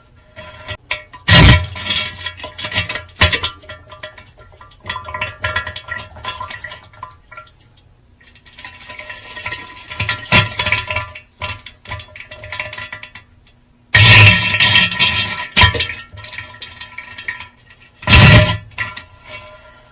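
Comic pooping sound effects: irregular loud bursts of splashing, flushing water noise, the three loudest near the start, about two-thirds through and near the end, over a steady music tone.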